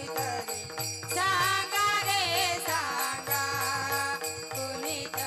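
Marathi gaulan devotional song performed live: girls' voices singing over a harmonium's held notes, with a mridang (pakhawaj) drum and small hand cymbals keeping a steady rhythm.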